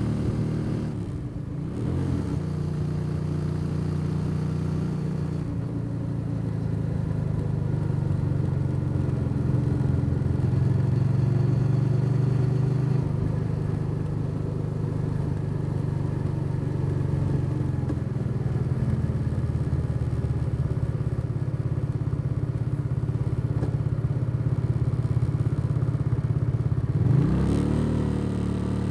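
Motorcycle engine running under way, its note holding fairly steady while cruising. The engine note drops briefly about a second in, and near the end it falls and climbs again quickly.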